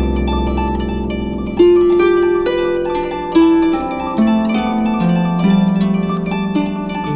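Instrumental harp music: a calm piece of plucked harp notes ringing over sustained low bass notes, with a few stronger plucked notes every second or so.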